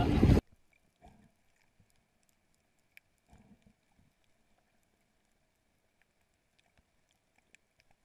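Loud open-air noise that cuts off abruptly about half a second in. What follows is the near-silence of a camera recording underwater: a faint steady hum, scattered faint clicks, and soft muffled knocks about one and three and a half seconds in.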